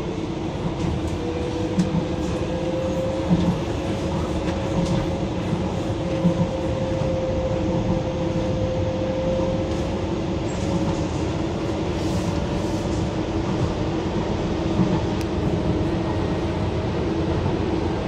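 Docklands Light Railway train in motion, heard from inside the front car: a continuous rumble of wheels on track under a whine from the traction motors that drifts slowly in pitch, with a few short knocks as the wheels run over rail joints.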